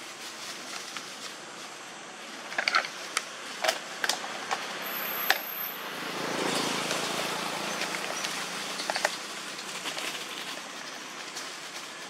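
Dry leaf litter crackling and rustling under macaques moving about, with a run of sharp clicks and a few short squeaks a couple of seconds in. A broad swell of steady noise rises and fades in the middle.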